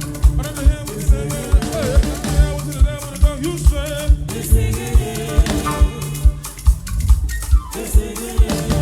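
Live gospel band music with a steady, driving kick-drum beat, held keyboard chords and voices singing over it.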